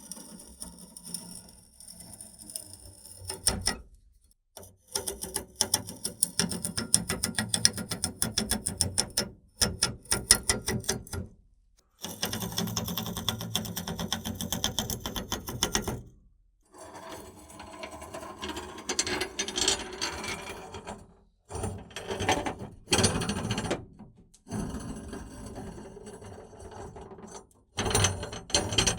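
Old rusty gears turning, a rapid clicking and grinding mechanism run in several separate passes with short pauses between them.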